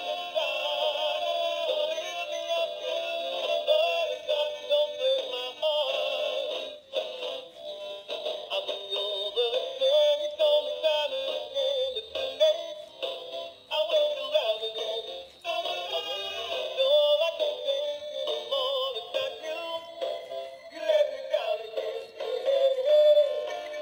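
Animated plush singing dog toy playing a song with a singing voice through its small built-in speaker. The sound is thin and tinny, with no bass.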